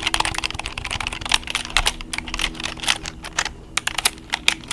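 Keys of a computer keyboard being typed in quick, irregular clatters of clicks, denser for the first couple of seconds and then in sparser strokes.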